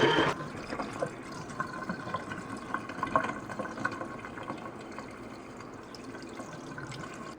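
Small folding portable washing machine on its wash cycle: water and clothes sloshing in the tub, with a faint steady motor tone underneath.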